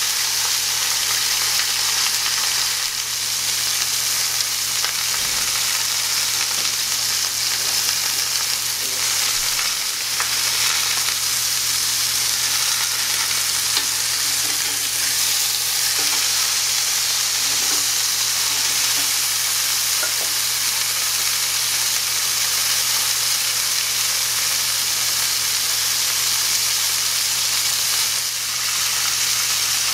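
Chuck steak searing in a hot cast-iron skillet, sizzling steadily as it browns and takes on grill marks.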